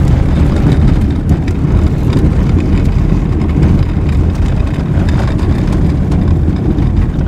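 Car driving on a dirt road, heard inside the cabin: a steady, loud low rumble of tyres and engine, with a few light rattles.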